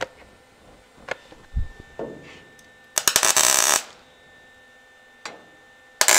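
Welder tack-welding a sheet-metal patch panel onto a car body: two short bursts of arc crackle, one about three seconds in and another starting near the end. A few light metallic clicks come between them.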